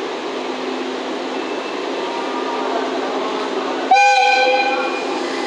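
Steady rumble and low hum of a locomotive standing at a covered platform, then about four seconds in the EF65 electric locomotive sounds its whistle once: a sudden, loud, high tone that lasts about a second and fades away.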